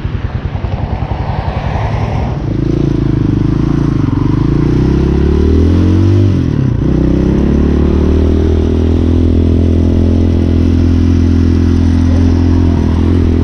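Hawk 250cc motorcycle's single-cylinder engine running at a low, pulsing idle, then revving up about two seconds in. Its pitch dips and climbs again about halfway through, like a gear change, and then it holds a steady pitch while under way.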